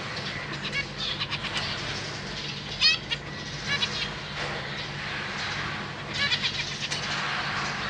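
Zebra finches calling: short, nasal, honking calls scattered irregularly, the loudest about three seconds in and a quick cluster around six seconds. A steady low hum runs underneath.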